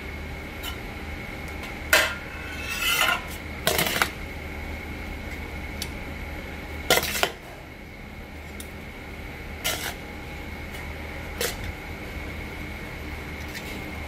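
A metal spoon clanking and rattling against a large stainless-steel mixing bowl as glass noodles are tossed by hand, with a handful of sharp clinks at irregular intervals over a steady background hum.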